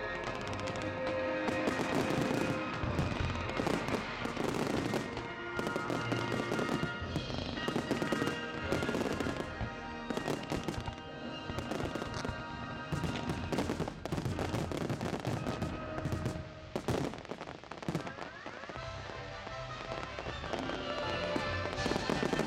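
Fireworks display: many sharp bangs from bursting shells in quick succession, mixed with the display's music soundtrack, with a brief lull in the bangs a little after halfway.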